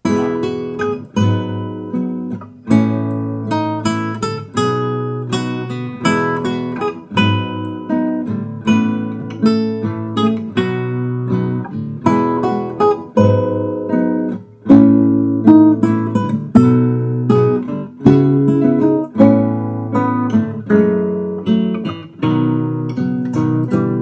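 Recording of a nylon-string acoustic guitar piece playing back, a steady run of plucked notes. A steep, narrow equaliser boost is swept through it and transforms its tone.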